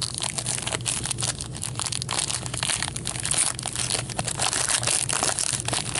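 Plastic wrapping crinkling and tearing in dense, continuous crackles as a hockey card box is unwrapped and its packs are handled.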